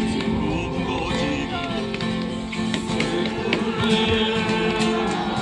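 Live acoustic music with a guitar playing.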